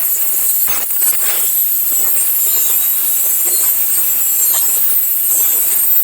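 Angle grinder running steadily against the steel of an angle-iron bed frame, grinding off its rivets, with a loud high-pitched hiss.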